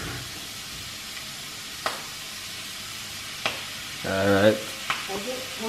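Shrimp and vegetables frying in a skillet with a steady sizzle. Three sharp clicks about two, three and a half and five seconds in, and a brief voice sound about four seconds in.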